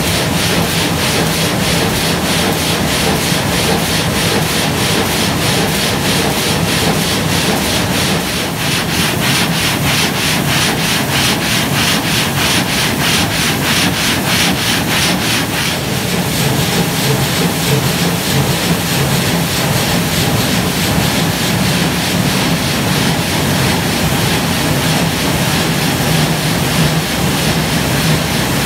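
Multi-blade stone gang saw sawing through a basalt block, its blade frame drawn back and forth under a heavy spray of cooling water. The sound is loud and continuous, with a regular beat from the sawing stroke.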